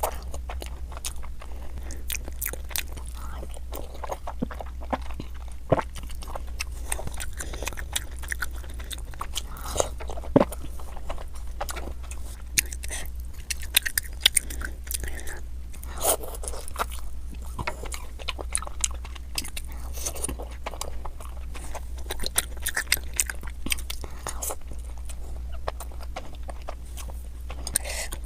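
Close-miked biting and chewing of Indian sweets: a continuous run of crunching and short clicking mouth sounds, over a steady low hum.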